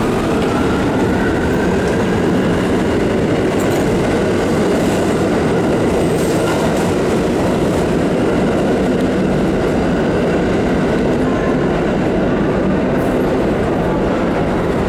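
New York City subway trains rumbling and clattering on the tracks, heard inside the station as a loud, steady din.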